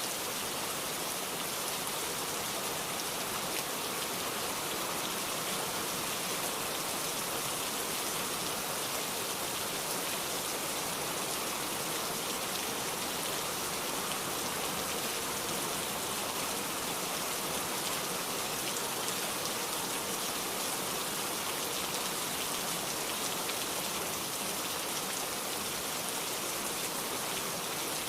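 Heavy, steady downpour of rain, an even hiss with no thunder.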